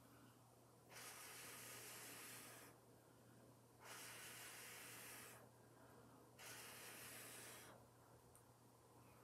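Three quiet breaths blown out by mouth onto wet acrylic pouring paint, each a breathy hiss lasting about a second and a half, about a second apart: blowing the paint across the panel in a Dutch pour.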